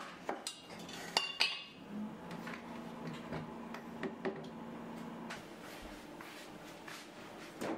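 Kitchenware being handled on a cupboard shelf: an aluminium Bialetti moka pot and a glass teapot knocking and clinking against each other and the shelf. A few sharp, ringing clinks come about a second in, followed by lighter taps, and there is one more knock near the end.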